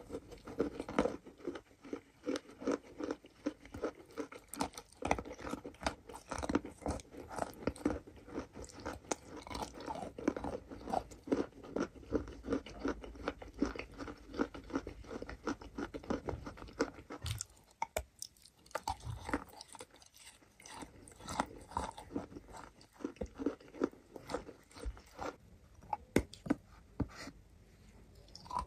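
Close-miked biting and chewing of chalk blocks coated in wet clay slurry: a dense run of crunches, with a brief lull a little past halfway and another shortly before the end.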